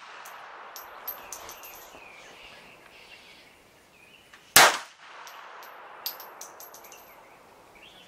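A single shot from a Smith & Wesson M&P380 Shield EZ pistol (.380 ACP) a little after halfway. Light metallic tinkles near the start and again after the shot, as spent brass cases bounce and settle.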